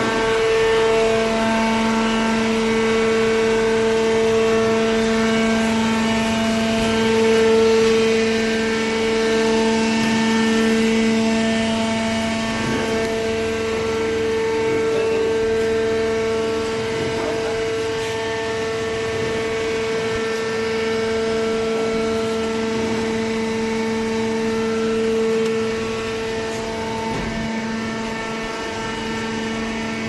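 Hydraulic baler's electric motor and hydraulic pump running, a steady humming whine with a strong even pitch.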